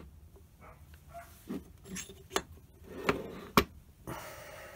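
Cast-iron lathe apron and its fitted shafts and gears being handled on a wooden bench: four light knocks and clinks of metal, the sharpest about three and a half seconds in, then a short scraping slide near the end as the casting is shifted.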